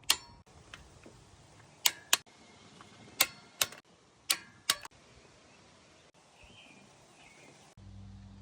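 Sharp metallic clicks of a click-type torque wrench and socket as spark plugs are tightened to 20, several coming in close pairs with a brief ring. A low steady hum starts near the end.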